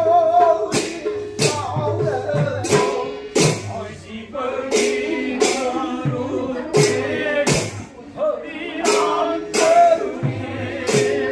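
Music: a man singing with a wavering voice over a beat of sharp percussion strikes and a recurring held instrumental note.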